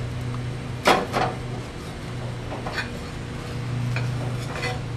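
Metal spatula cutting down through a toasted ciabatta sandwich onto a plate: a sharp knock about a second in, then a few faint clicks and scrapes, over a steady low hum.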